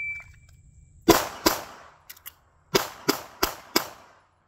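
A shot-timer beep, then a CZ Shadow 2 9mm pistol fires two quick shots, a pause of about a second with faint clicks of the reload, then four more quick shots, about three a second.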